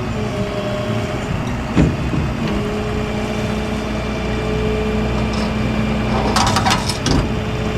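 Engine of the towing vehicle idling steadily, with a sharp knock about two seconds in and another near the end.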